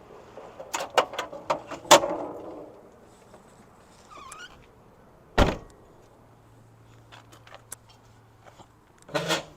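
Knocks and clicks of objects being handled: a quick cluster in the first two seconds, one heavy thump about five and a half seconds in, and a short rattle near the end.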